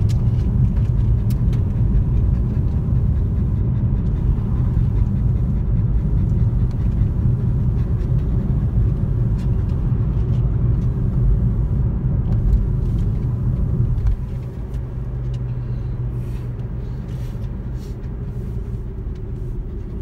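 A car driving on wet pavement, heard from inside the cabin: a steady low rumble of the tyres and engine. It quietens abruptly about two-thirds of the way through.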